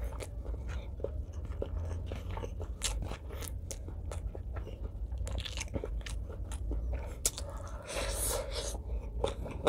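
Close-up eating sounds: a person chewing with many short wet mouth clicks, then a denser crunchy bite into a piece of green vegetable about eight seconds in.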